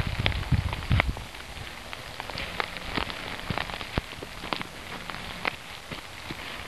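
Footsteps crunching through dry leaves and twigs on a forest path: an irregular scatter of sharp crackles and snaps, with a few low thumps in the first second.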